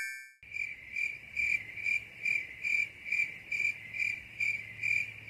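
Cricket chirping sound effect: a single clear high chirp repeating evenly about two and a half times a second, starting about half a second in. A wavering tone fades out just before it begins.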